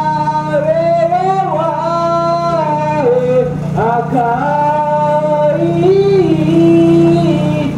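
A man singing an ondo-age festival chant solo: one voice with long held notes that slide and waver between pitches, over a steady low hum.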